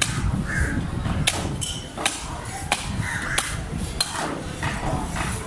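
A knife cutting into a large snapper's head on a wooden block, with sharp clicks and knocks as the blade strikes bone, five or six strikes about a second apart.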